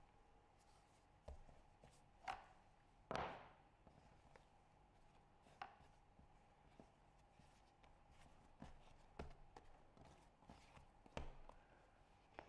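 Quiet handling sounds of bread dough being rolled and folded by hand on a marble counter: scattered soft taps and knocks. A clear plastic rolling pin is set down on the marble, and the loudest knock comes about three seconds in.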